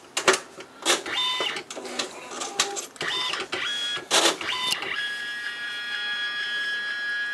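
Alps MD-5000 printer's mechanism running its reset cycle after its cover has been opened: a series of clicks and clunks with short, stepped motor whines, then a steady motor whine of several tones from about five seconds in. The cycle readies the printer to print, after which its error light goes out.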